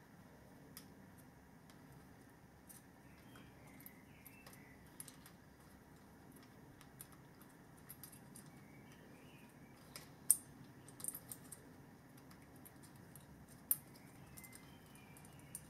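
Light handling sounds of wiring being fed through an electric motor's casing toward its terminal box: scattered small clicks and ticks, with a few sharper ones about ten and fourteen seconds in.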